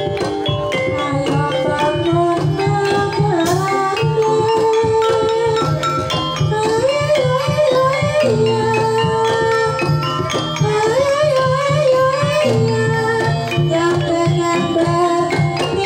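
Banyumasan gamelan ensemble playing a tayub piece: wooden xylophone, kendang drums and gongs, with a sinden (female gamelan singer) holding long, sliding, ornamented vocal lines over the steady pulse.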